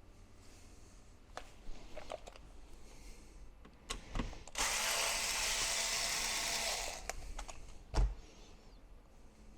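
Electric screwdriver running for about two seconds to back out a screw, with small clicks of handling around it and a sharp knock near the end.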